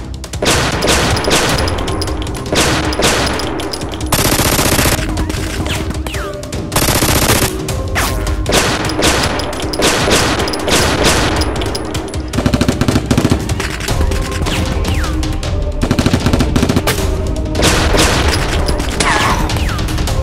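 Gunfire sound effects dubbed over toy-blaster fire: many sharp single shots and rapid bursts, with two longer dense bursts about four and seven seconds in, over background music.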